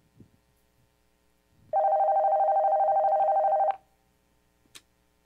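Red corded desk telephone ringing once for about two seconds with a fast warble, signalling an incoming call. About a second after the ring there is a short click as the handset is picked up.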